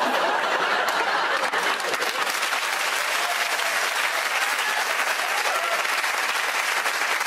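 Studio audience applauding, a dense, steady clatter of many hands clapping.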